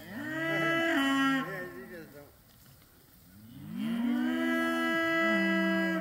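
Cattle mooing: two long, loud moos, the first over the opening second and a half, the second starting a little past halfway and held to the end.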